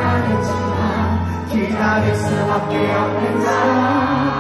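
Live rock band playing a slow pop-rock ballad, with a male lead singer's voice over it, heard through the echo of a concert hall.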